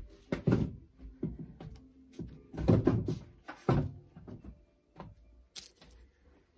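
Several dull thuds and knocks, the loudest about three seconds in, from a person moving about and handling things on a wooden kitchen floor, over faint background music.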